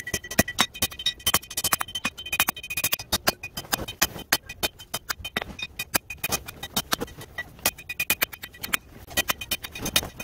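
Hand hammer striking a red-hot steel knife blank on an anvil in rapid blows, several a second. The anvil rings with high, steady tones between blows.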